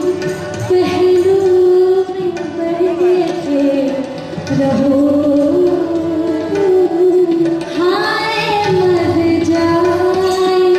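Live Indian vocal music: a woman singing long, wavering held notes with harmonium, tabla and bansuri flute accompaniment.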